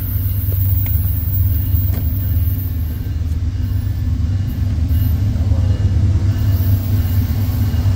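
Union Pacific freight train rumbling past, a loud steady low rumble.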